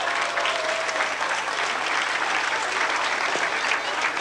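Crowd applauding: many hands clapping together in a steady, dense patter.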